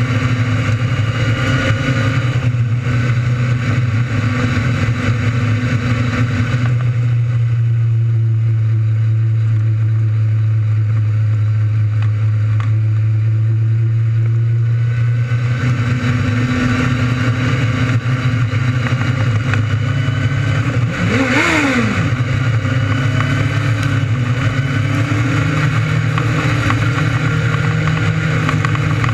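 600cc micro sprint motorcycle engines running hard in a race, with a steady high engine note and a dip in the upper range for several seconds. About 21 seconds in, another car's engine passes close with a quick swing in pitch.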